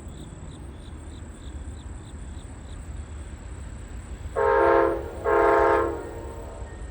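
Passenger train locomotive's multi-chime air horn sounding two short blasts in quick succession, a chord of several tones, over a low rumble.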